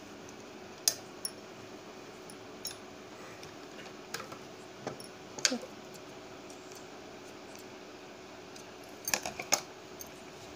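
Scattered small clicks and taps at a sewing machine as fabric is handled and set under the needle, a few single ones and then a quick run of three near the end, over a faint steady hum.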